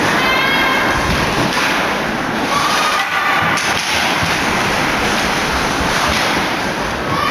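Loud, steady crowd noise in an ice hockey arena: spectators cheering and yelling, with a few raised voices standing out above the din.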